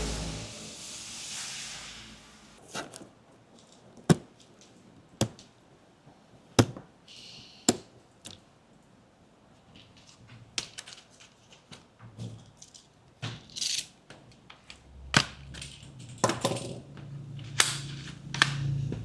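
Computer parts being handled and fitted: a series of sharp clicks and knocks, roughly one a second, some followed by brief scraping. A rushing noise fades out in the first couple of seconds.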